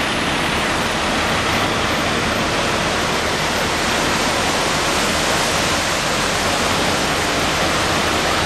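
Steady, even rushing of a muddy stream's water.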